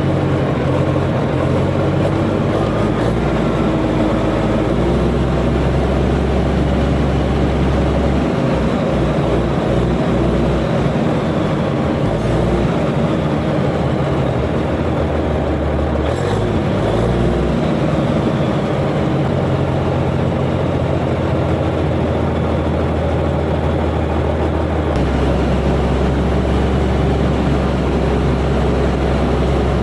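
Komatsu bulldozer's diesel engine running, a loud steady drone whose lowest notes shift several times, around 5, 8–12, 17 and 25 seconds in.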